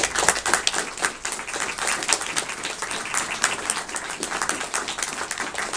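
Audience applauding, many hands clapping in a dense, even patter.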